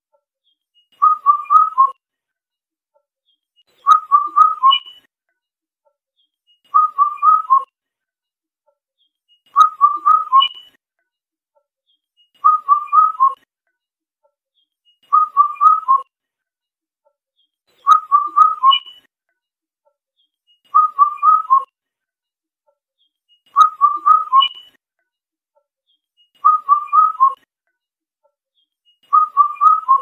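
Indian cuckoo singing its four-note whistled call, the 'bắt cô trói cột' phrase, with the last note a little lower. The phrase repeats about every three seconds, some eleven times.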